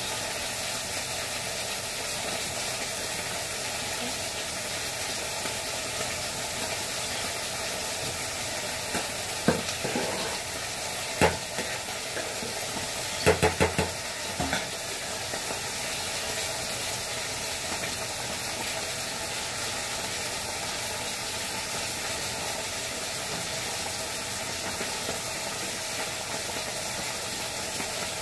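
Fish pieces frying in hot oil in an aluminium pot, a steady sizzle, with a few sharp knocks and scrapes of the spatula against the pot around the middle as the fish is turned.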